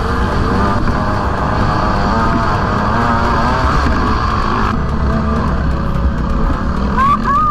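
KTM SX 150 two-stroke single-cylinder dirt bike engine revving up and down under load as it is ridden around a motocross track, with wind buffeting the helmet-mounted microphone.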